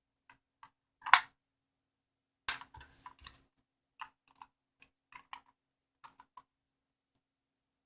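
Nickel-metal hydride AA batteries being dropped into the plastic battery compartment of a Kodak C653 digital camera: a run of short plastic clicks and rattles, with a sharp click about a second in and a cluster of clatter around two and a half to three and a half seconds.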